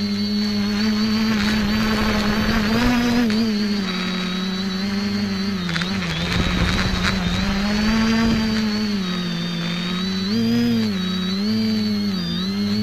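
X550AIOP quadcopter's electric motors and propellers whirring up close, with a high motor whine over them. The pitch rises and falls repeatedly as the throttle changes through banks and turns.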